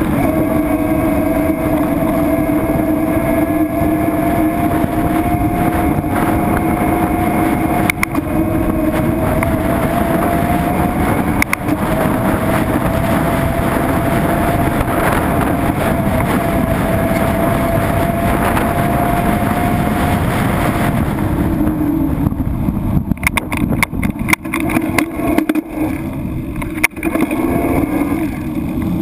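Boat motor running steadily, its pitch creeping slowly upward, then dropping and turning uneven about 21 seconds in, with a few sharp knocks near the end.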